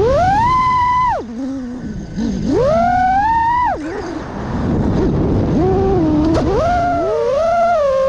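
Four Xing-E 2207 2450kv brushless motors on a 5-inch FPV quadcopter whining as the throttle is punched: the pitch climbs and holds high, then drops sharply when the throttle is cut, twice, before climbing again in steps near the end.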